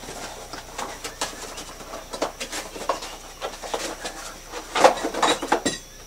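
A small cardboard parts box being opened and a part taken out and set down: irregular rustling, scraping and light knocks of cardboard and plastic, busiest near the end.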